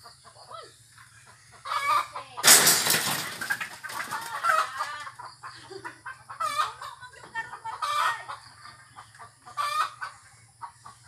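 Chickens clucking and calling in short, repeated bursts. About two and a half seconds in comes a loud rustling rush lasting about a second.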